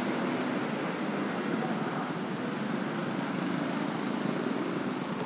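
Road traffic, mostly motor scooters and cars passing on a busy street: a steady hum of small engines and tyres with no single event standing out.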